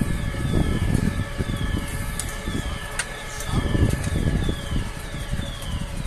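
Building fire alarm sounders going off, a high falling tone repeating about twice a second, over a low rumble. The alarm system was set off by powder from an emptied dry-powder fire extinguisher.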